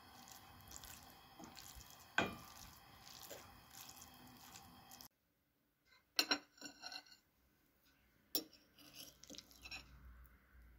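Wooden spoon stirring mashed carrot salad in a stainless steel bowl, with one sharp knock about two seconds in. After a short gap, a fork clinks and scrapes against a plate several times.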